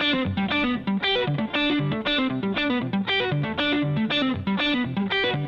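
Background music: a picked electric guitar playing a fast, steady run of notes over a repeating bass line.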